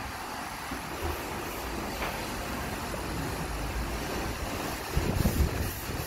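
MAN truck's diesel engine running with a steady low rumble under an even wash of noise. About five seconds in, wind buffets the microphone in low gusts.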